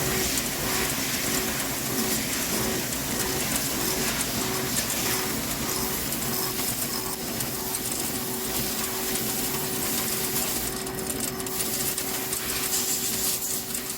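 Hankook PROTEC-9NC heavy CNC lathe turning a forged steel pinion shaft: a steady machining hiss with a hum that pulses at first and then holds steady.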